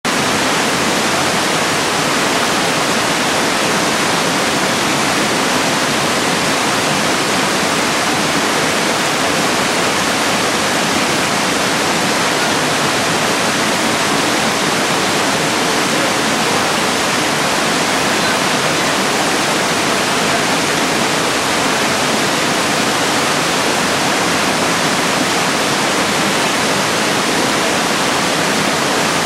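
Small waterfall cascades in a rocky gorge stream, water rushing steadily and evenly over the rock ledges.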